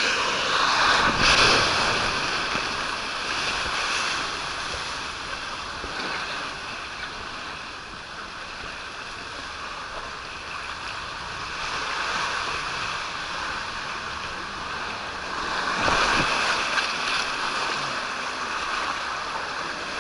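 Water rushing down an open water slide under a rider's inflatable tube, with wind on the microphone. The rush swells about a second in and again near the end.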